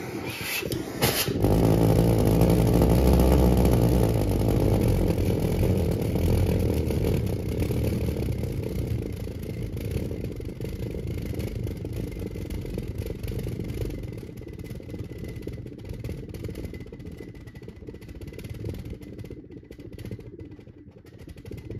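Twin valveless pulsejets mounted in a V ('V-twin') running together with a loud, low, pulsing drone. It catches about a second in and then slowly dies down over the following twenty seconds.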